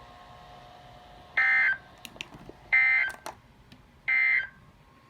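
Emergency Alert System end-of-message signal: three short, identical bursts of digital data tones, about 1.3 seconds apart, marking the end of the alert.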